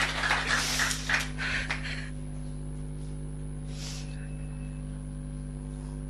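A burst of noise that dies away about two seconds in, leaving a steady low electrical hum with a short hiss near the middle.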